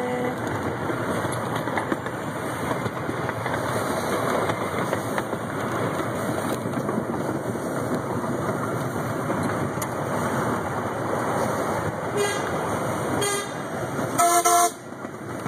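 Miniature ride-on train rolling along its track, a steady rumble of wheels on rails. Two brief whistle toots come near the end, then a louder toot.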